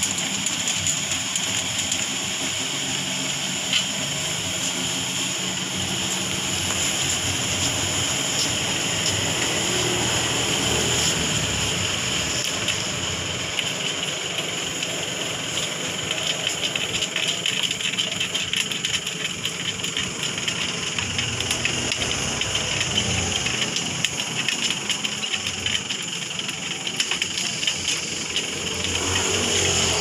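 A motor or engine running steadily, with a few faint light clicks.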